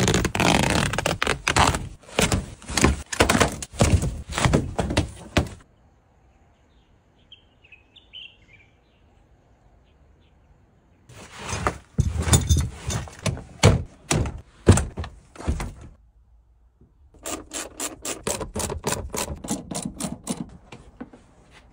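Knocks and scrapes of car seat parts being handled, then a quiet stretch with a bird chirping faintly. Near the end, a run of quick, regular clicks from a ratchet wrench turning the rear seat's mounting bolts.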